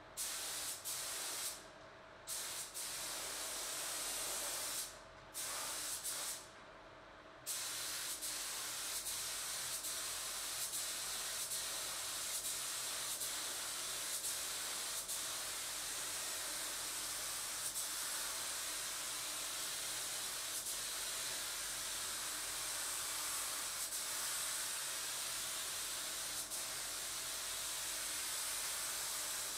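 Gravity-feed air spray gun at about 2 bar hissing as it lays a heavy first coat of primer onto bare-metal car body panels. The trigger is let off briefly three times in the first seven seconds or so, then the spraying runs on without a break.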